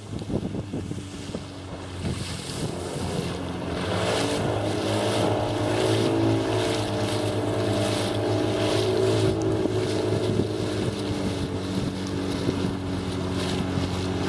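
Outboard motor driving a long river canoe at speed, a steady engine drone that builds and settles over the first few seconds. Wind buffets the microphone and water rushes past the hull.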